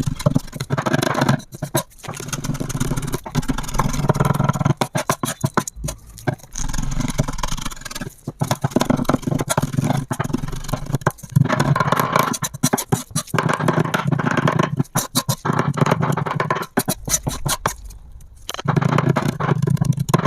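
Kitchen knife rapidly chopping food on a cutting board, mincing it toward a paste. The strikes come in fast runs of a few seconds with brief pauses between them.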